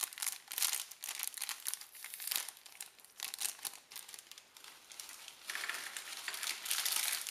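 Crinkling of a foil MRE snack pouch being handled, then from about five and a half seconds in a denser, steadier rustle as the mixed nut crunch of peanuts and sesame sticks is shaken out of the pouch into a small ceramic dish.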